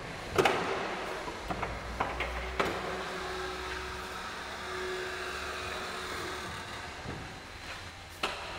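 Jungheinrich ETV 214 battery-electric reach truck working: its electric motor hums steadily, starting about two and a half seconds in and stopping about two seconds before the end, among several sharp clacks of metal parts.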